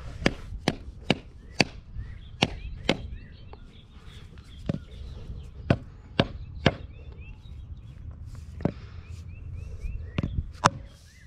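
About a dozen sharp taps in uneven clusters on a poured-stone pool coping stone, setting it down into its mortar bed.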